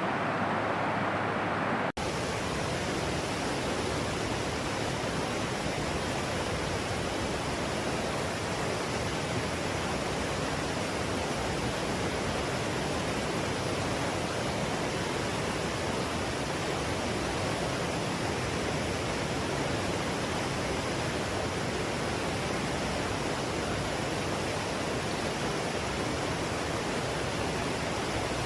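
Fast-flowing stream rushing steadily. About two seconds in, the sound changes abruptly to a brighter, hissier rush, which then holds steady.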